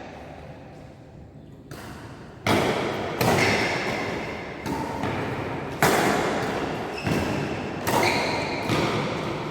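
Badminton rally: a string of sharp racket hits on the shuttlecock, roughly one a second, each echoing in a large hall.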